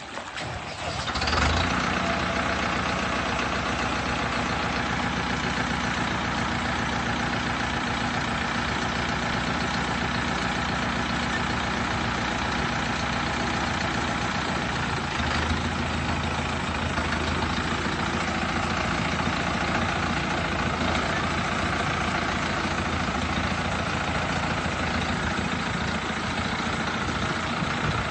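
Preet tractor's diesel engine running steadily at idle. It comes up to its steady level about a second and a half in, with a slight change in the low note around the middle.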